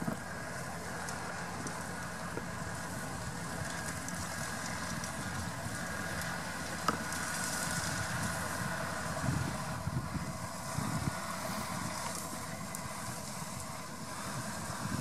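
McCormick MC105 tractor's engine running steadily as it pulls a hay tedder across the field.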